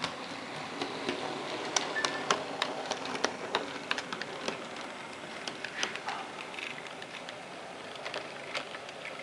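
HO scale model train rolling past on its track: a steady running noise with many irregular clicks from the wheels on the rails, the clicks thickest in the first half.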